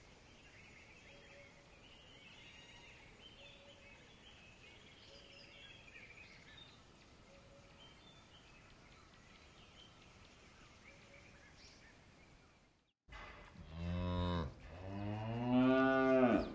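Faint background with light chirping, then after a sudden cut a cow mooing twice near the end, a short call followed by a longer, louder one that rises and falls in pitch.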